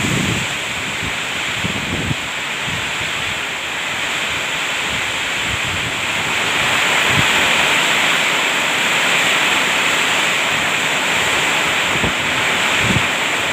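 Heavy rain pouring down in a storm as a steady, dense hiss that grows a little louder about halfway through, with wind now and then buffeting the microphone.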